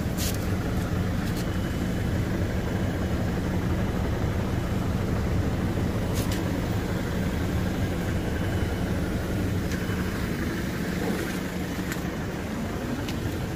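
Chevrolet Captiva's turbo-diesel engine idling steadily, with a few short clicks over it.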